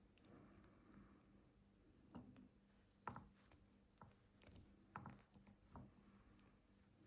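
Near silence broken by a few faint, scattered clicks and taps of small metal lighter parts and a tool being handled as a screw goes back into a Dupont Line 1 lighter.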